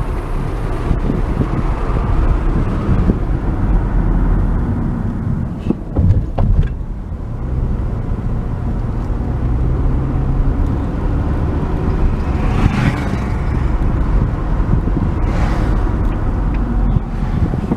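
A car driving slowly, with a steady low rumble of engine and tyres and a couple of short thumps about six seconds in.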